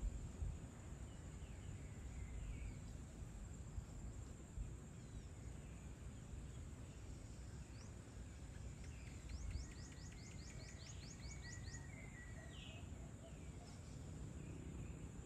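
Evening outdoor ambience: birds calling with short scattered chirps, one of them giving a rapid trill of about a dozen quick notes a little past the middle, over a low steady rumble and a faint steady high-pitched tone.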